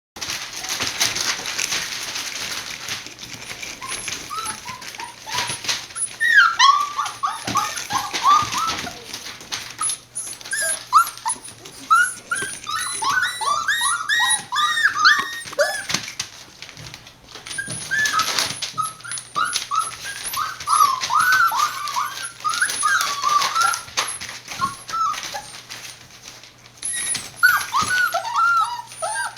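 A litter of six-week-old border collie puppies whining and whimpering. Many short cries rise and fall and overlap one another, coming in bunches, among scuffles and clicks.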